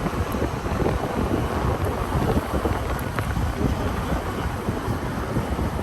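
Wind buffeting the microphone over the low rumble of a truck driving.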